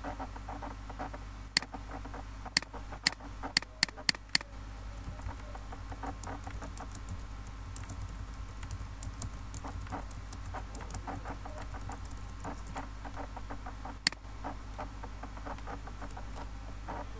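Typing on a computer keyboard: irregular soft key taps all through, with a quick run of sharper, louder clicks about two to four seconds in and one more about fourteen seconds in, over a steady low hum.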